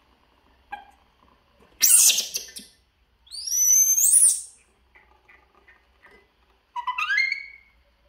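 Young pet macaque monkeys giving high, bird-like whistling calls: a short shrill squeal about two seconds in, a longer rising call around four seconds, and another rising call near the end.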